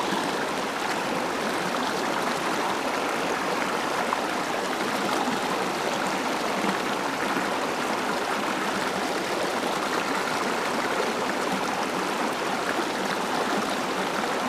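Shallow, rocky mountain stream running over stones and small riffles, a steady rushing babble of water with no change throughout.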